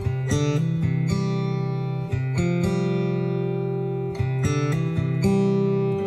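Background music: acoustic guitar playing chords, struck about every half second.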